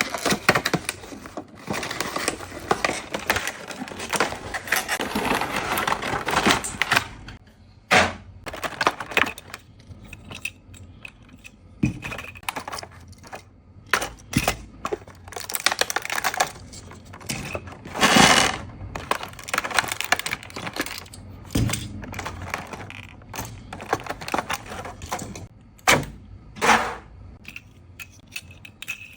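Unboxing handling noise from a set of small die-cast alloy model vehicles and their packaging. There is dense crinkling and rustling for the first seven seconds or so, then scattered clicks and clacks of small hard pieces being handled.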